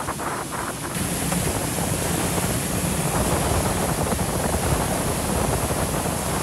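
Water rushing and spraying along the fibreglass hull of a Yamaha FR27 cruiser under way, with wind buffeting the microphone. The engine runs as a steady low hum underneath from about a second in.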